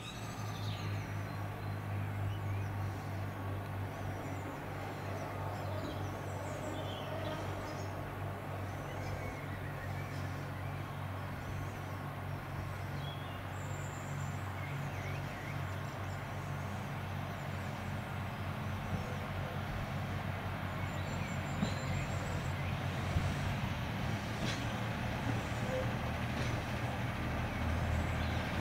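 Class 142 Pacer diesel railbus's underfloor Cummins diesel engine running at a steady idle, a low even throb that grows a little louder about two-thirds of the way through.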